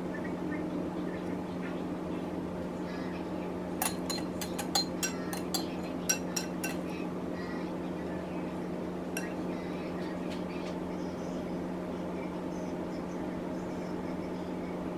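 A utensil clinking and tapping against a glass bowl in a quick run of about ten clinks a few seconds in, with two fainter clinks a little later, over a steady low hum.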